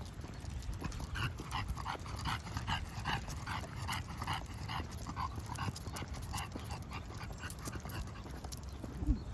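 English bulldog breathing heavily, panting in a steady rhythm of about three breaths a second that thins out near the end. A single bump near the end.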